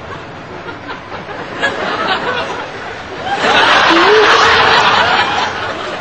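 Audience laughter, swelling loudly about three and a half seconds in and dying down about two seconds later, after a low murmur of voices.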